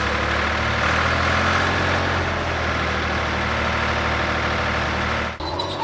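Bulldozer engine running steadily with a low rumble, cutting off abruptly near the end.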